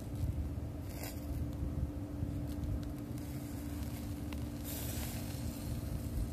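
Steady low rumble with a faint constant hum, and two brief hissing scrapes, about a second in and again about five seconds in, as lamb skewers are handled in a wire grilling basket over a charcoal grill.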